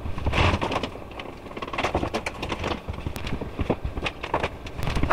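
Oster countertop toaster oven being handled and lifted off the counter: a run of irregular clattering knocks and rattles.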